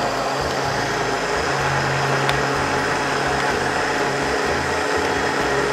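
Small countertop electric blender running steadily, grinding a watery spice paste of shallots, garlic and candlenuts that is not yet smooth.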